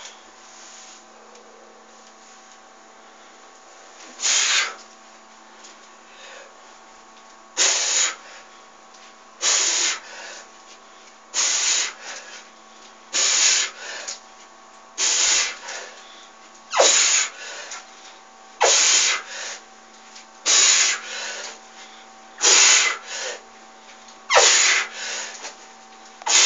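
A man's forceful breathing while curling a heavy 35 kg dumbbell: a sharp hissing exhale with each rep, about every two seconds from about four seconds in, each followed by a shorter, quieter breath, about a dozen times, over a faint steady hum.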